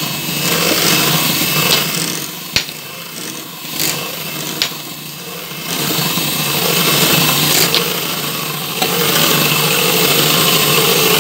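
Electric hand mixer running, its beaters whisking egg yolks and margarine while boiling water is poured in. The motor's steady hum dips quieter for a few seconds in the middle, with two sharp clicks there.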